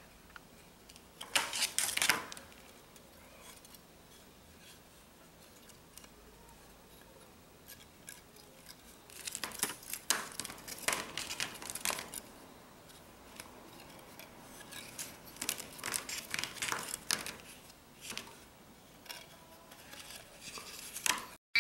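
Handling noise from thin enameled wire being wound around matchstick pegs on a wooden paddle: short bouts of scratchy scraping and rustling, about two seconds in, around ten seconds in and around sixteen seconds in.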